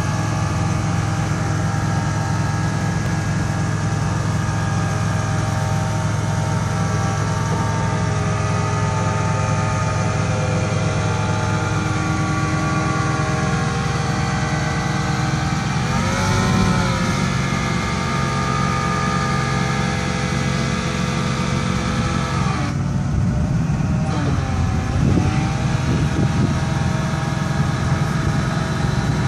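Forklift engine running steadily while its hydraulics turn a Cascade rotating fork clamp. The engine pitch briefly rises and falls a little past halfway, and again near the end.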